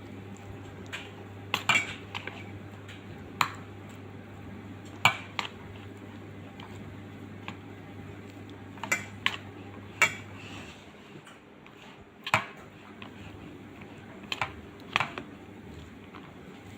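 Fried rice being stirred in a pan: a cooking utensil knocks and scrapes against the pan in irregular clanks, about a dozen sharp hits, over a steady low hum that stops about ten seconds in.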